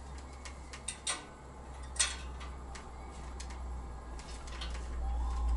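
Light metal clicks and taps as a bicycle fork and headset parts are fitted into the chrome frame's head tube, with one sharp click about two seconds in, over a low steady hum.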